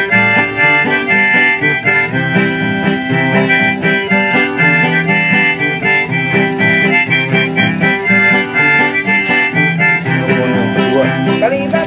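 Background music: a harmonica tune playing over a steady accompaniment.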